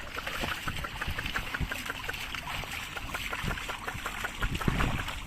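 Bullock-drawn plough working a wet field: water and mud sloshing and splashing, with a rapid run of light ticks and a few heavier low thuds near the end.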